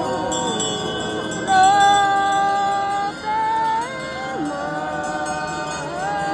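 Tibetan monastic procession music: reed horns playing long held notes that step and slide in pitch, loudest from about a second and a half in, over a light jingle of bells.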